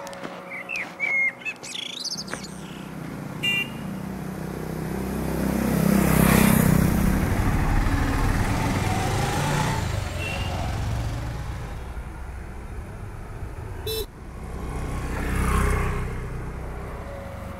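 Two road vehicles drive past one after the other. An auto-rickshaw's engine grows loud and fades about six seconds in, and a motor scooter passes about fifteen seconds in. Birds chirp near the start.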